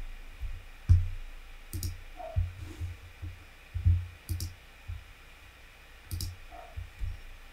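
Computer mouse clicking, a dozen or so scattered soft clicks and low thumps over a few seconds.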